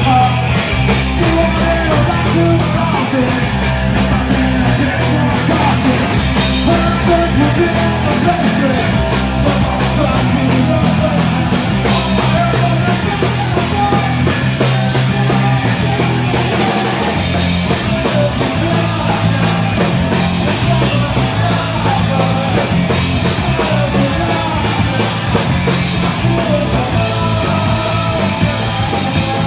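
Live punk rock band playing loudly: electric guitar and drum kit with a singer's vocals over them.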